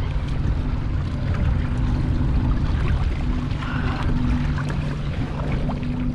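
Wind buffeting the microphone on a small boat at sea, a dense low rumble, with a steady low hum running underneath.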